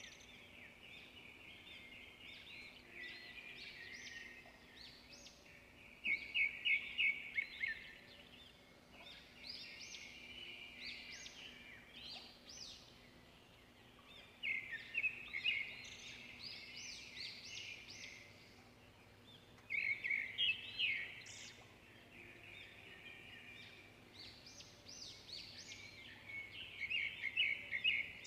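Birds chirping: bursts of rapid, high chirps and trills that come and go every few seconds, over a faint steady hum.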